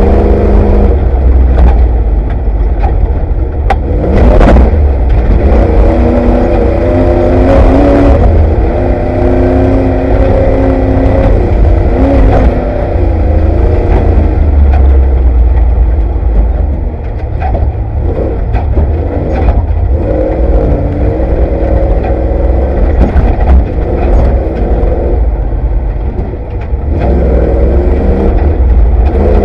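Off-road race vehicle's engine heard from inside the vehicle, revving up and easing off again and again at speed. Heavy rumble and scattered knocks and rattles come through as it pounds over rough desert ground.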